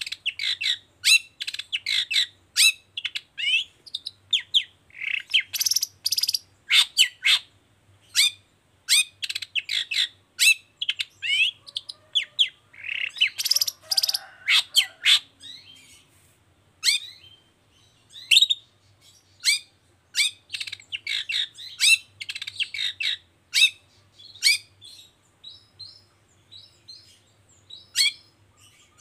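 Long-tailed shrike (cendet) in full song: a rapid string of short, sharp calls and quick whistled notes sliding up and down, with a denser, harsher stretch of chatter about halfway through and more spaced-out calls near the end.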